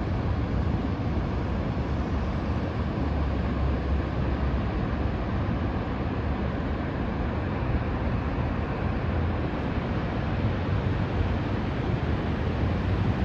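Willamette Falls, a wide, high-volume river waterfall, giving a steady rushing noise of falling water that is heaviest in the low end.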